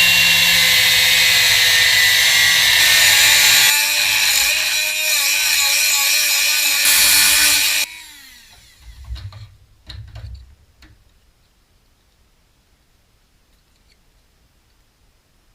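Angle grinder cutting the Beetle's steel body panel: a loud, hissing cut over a motor whine whose pitch shifts about four seconds in. It is switched off about eight seconds in and its whine falls away as it spins down, followed by a few light knocks.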